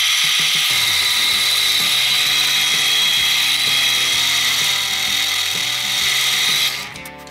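Small metal lathe running, a loud steady geared whir with a high whine. It cuts off suddenly near the end.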